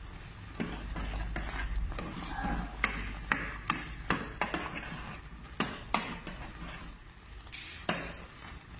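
A metal ladle stirring a thickening kudzu starch mixture in a metal pot, clinking and knocking against the pot's sides and bottom a couple of times each second, at irregular intervals.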